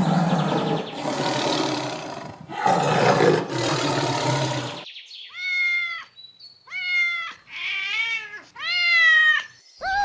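Animal calls: two long, rough roaring calls, then four short high-pitched calls that rise and fall.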